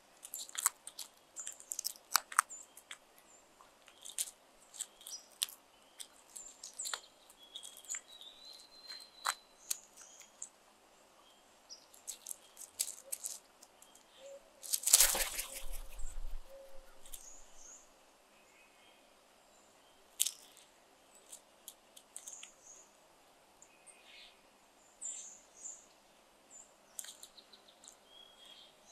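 Crows pecking and crunching food on gravel: a scatter of short, sharp clicks and taps, with small birds chirping and whistling in the background. About halfway through comes a louder rustling burst.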